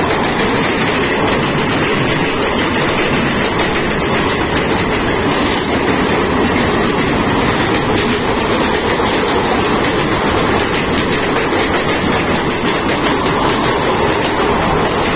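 Two passenger trains running at speed on parallel tracks close together: a steady, loud rumble and rattle of steel wheels on rails, with clickety-clack over the rail joints.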